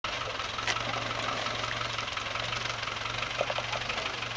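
Land Rover Defender 90's 2.5-litre four-cylinder Tdi turbodiesel running steadily at low revs as the truck crawls slowly over rock ledges, with a few brief clicks.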